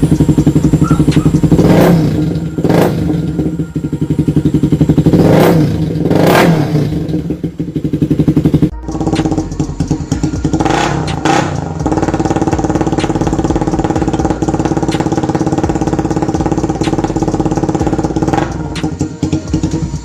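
Small single-cylinder four-stroke motorcycle engine with an open pod air filter, idling and revved in short blips: two pairs of quick revs in the first seven seconds, another pair about eleven seconds in, and one more near the end.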